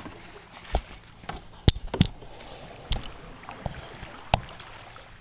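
Canoe being paddled: water swishing around the paddles, with half a dozen sharp knocks, likely paddle strikes against the canoe's side, the loudest two close together in the second second.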